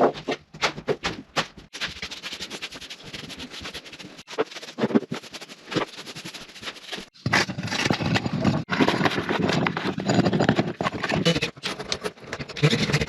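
Attic demolition work noise: scraping, rustling and knocking from pulling out insulation and fittings, in short clips cut together so the sound breaks off abruptly several times.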